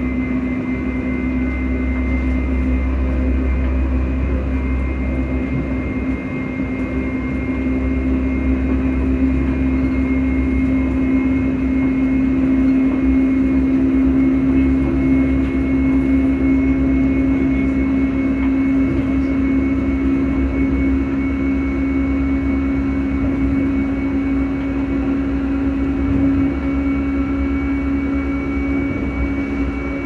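Alstom electric multiple unit's traction motor cooling fans running at speed: a steady hum that creeps slightly higher in pitch, with a fainter high whine above it, over the low rumble of the wheels on the track.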